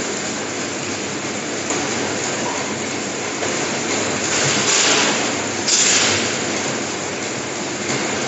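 An automatic cake packing line running: conveyor belts and packing machinery giving a dense, steady mechanical noise, with two louder hissing swells about four and a half and six seconds in.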